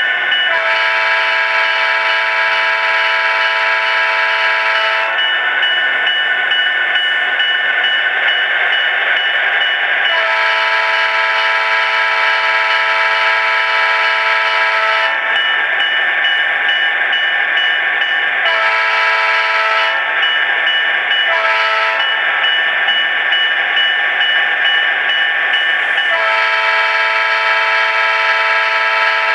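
HO-scale model diesel locomotive's sound decoder blowing its horn through its small onboard speaker: two long blasts, a short one and a final long one, the grade-crossing signal, over the locomotive's steady running sound.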